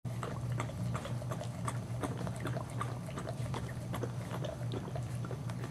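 Irregular soft wet clicks and smacks, a few a second, from a Boxer mother mouthing and licking her two-week-old puppy, over a steady low hum.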